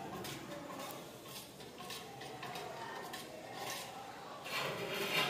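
Steel ladles and lids clinking and scraping against stainless-steel food buckets as food is served out: scattered clinks, with a louder clatter near the end.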